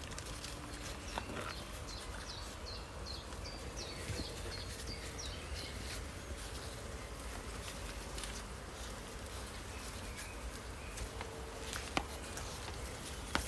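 Outdoor background with a songbird giving a quick run of short, high chirps a couple of seconds in, over the light rustle of puppies' paws on grass and earth. A couple of sharp ticks near the end.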